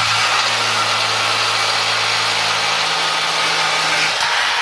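Reciprocating saw cutting through a steel exhaust pipe: a steady motor hum under a harsh metal-cutting rasp. It stops about four seconds in as the cut goes through.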